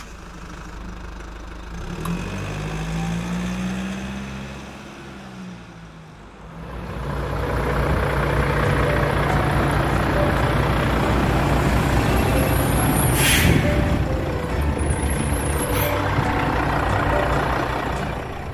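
Volvo FH 440 truck's diesel engine, revving up and back down in the first few seconds, then running steadily. A short air-brake hiss about 13 seconds in.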